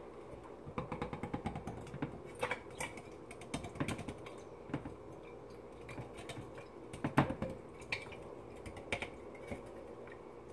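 A metal can of fruit cocktail being emptied into a glass mason jar of liquid: a run of quick light clicks and taps, with a sharper knock about seven seconds in.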